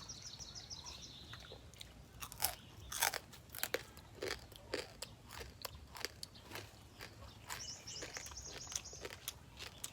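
Crunching and chewing of deep-fried stone crab: a run of sharp, irregular crunches as the crispy shell is bitten and chewed. A high, rapidly pulsing chirp from a bird or insect is heard in the background at the start and again near the end.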